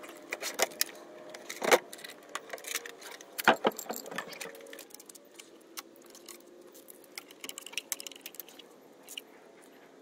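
Metal clinks, rattles and knocks of gear being unhooked and handled on an aluminum boat, with two sharp knocks about two and three and a half seconds in. Fainter scattered clicks follow in the second half.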